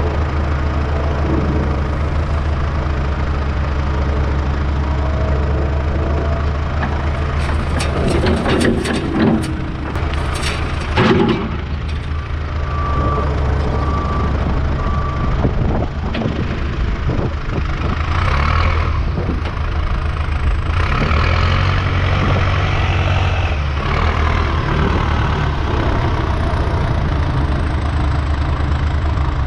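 Diesel earthmoving equipment running steadily under load, with a cluster of metal clanks and knocks about a third of the way in and three short beeps soon after.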